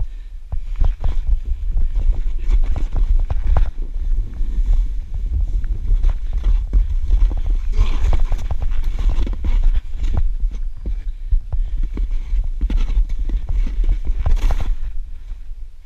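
Boots crunching and thudding through deep, lumpy snow in quick, irregular steps, over a steady low rumble on the microphone.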